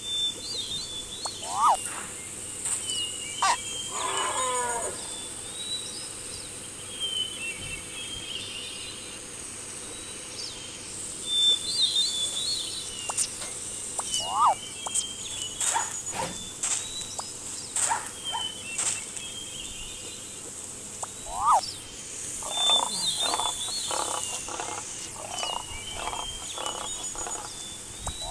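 A soundtrack of animal sound effects: birds chirping again and again, with now and then a sharp up-and-down whistle over a steady high hiss. A quick run of short calls comes a little past two-thirds of the way through.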